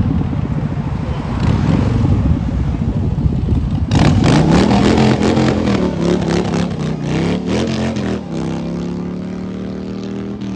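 Passing traffic, then about four seconds in a cruiser motorcycle's engine comes in loud, revving up and shifting as it rides past, before settling to a steady drone that fades near the end.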